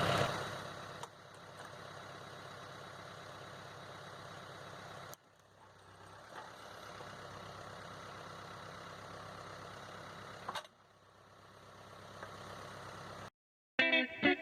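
Mahindra 2638 tractor's diesel engine running steadily at a moderate level, in three stretches broken by abrupt cuts. Guitar music starts near the end.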